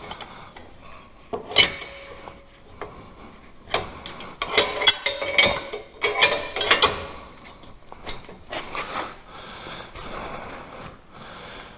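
Steel pieces of a homemade skid-steer T-post driver attachment clinking, knocking and scraping against each other as it is slid onto its pivot mount: a series of separate metal clinks and rubs, the busiest stretch in the middle.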